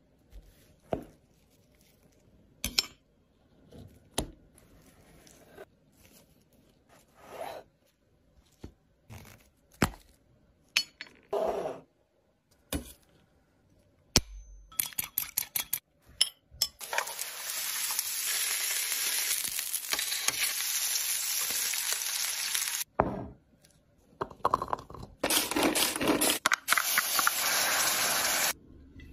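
Cooking sounds: scattered taps, clicks and clinks of utensils and food being handled, with a quick run of clicks about halfway through. Then comes steady sizzling from food cooking, about six seconds long, and after a short break a second stretch of about three seconds as a berry sauce is stirred in a pot.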